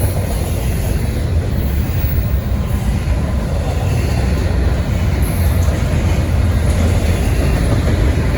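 Intermodal well cars of a long freight train rolling past close by: a steady, loud rumble of steel wheels on the rails.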